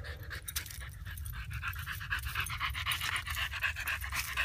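Boxer dog panting rapidly and close up, a quick, even rhythm of breaths that grows stronger after about a second.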